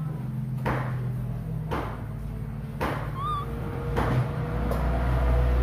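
Baby monkey giving a single short, wavering squeak about halfway through, among a few soft clicks about a second apart, over a steady low hum.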